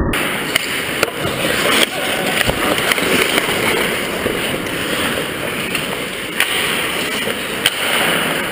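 Ice hockey skate blades scraping and carving the ice close by, a steady rough hiss, with several sharp clacks of sticks and puck on the ice.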